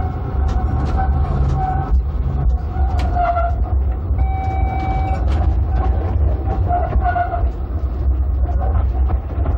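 Melbourne electric tram running along its track: a steady low rumble with scattered clicks, and high-pitched tones coming and going, one held for about a second near the middle.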